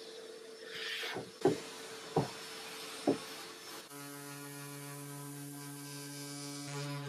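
A shop vacuum runs with a steady hum as its nozzle knocks against the wood three or four times. About four seconds in it gives way to a Festool random-orbit sander running with a steady pitched hum on the wooden panel.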